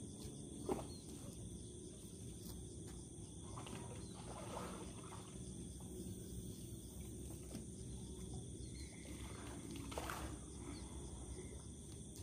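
Quiet open-air ambience: a continuous high-pitched insect drone, like crickets, over a steady low rumble, with one sharp click just under a second in.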